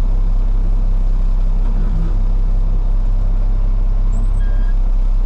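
Freightliner dump truck's diesel engine running steadily, heard from inside the cab as a constant low hum.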